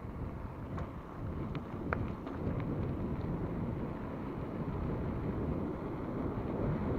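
Wind buffeting an action camera during a mountain bike ride, over a steady low rumble of tyres on a dirt trail, with a few sharp rattling clicks in the first two seconds.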